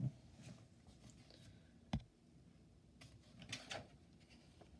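Faint handling of a picture book as its page is turned: a sharp tap about two seconds in, then a soft paper rustle near the end.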